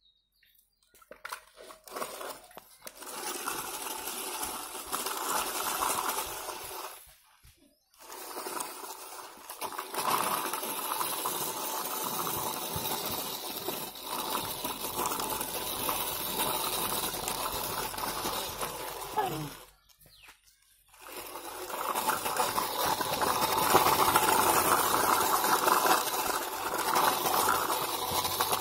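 Plastic wheels of a toy dump truck rolling and scraping over gritty dirt as it is pushed by hand, a steady rattling grind that stops briefly twice, about a third of the way in and again about two-thirds of the way in.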